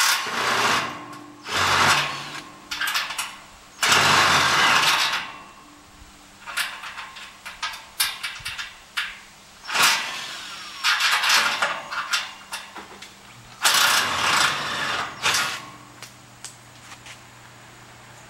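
A power tool run in repeated short bursts of about a second each, six or so times, with small clicks and knocks between them.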